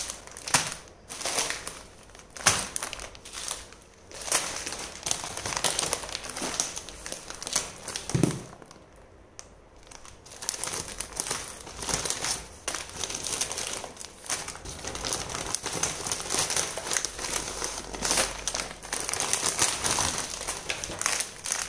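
Clear plastic packets of dried herbs crinkling and rustling as they are picked up and handled on a woven bamboo tray, in an irregular run of crackles with a brief lull partway through.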